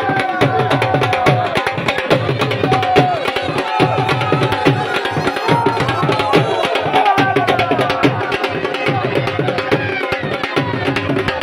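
Fast, steady drumming, with voices shouting over the beat from a crowd celebrating.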